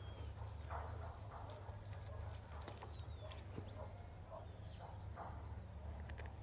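Hands pulling weeds and roots out of dry potting soil in a clay pot: irregular crunching, scraping and rustling of soil and dry grass.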